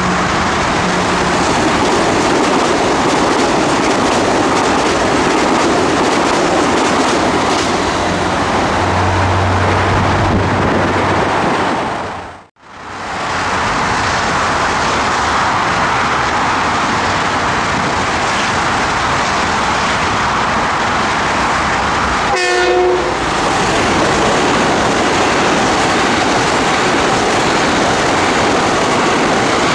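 Metro-North M8 electric multiple-unit trains running through the station, with steady rolling and wheel clatter. The sound drops out abruptly for a moment near the middle. A short horn blast sounds about two-thirds of the way through, as a train approaches and passes close by.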